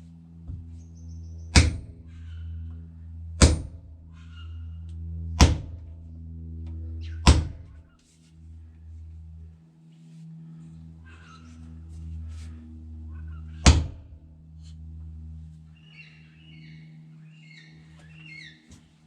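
Hammer blows driving a wedge into the new spotted gum handle of a block splitting maul to lock the head on: four sharp whacks about two seconds apart, then a fifth after a pause. A steady low hum runs underneath.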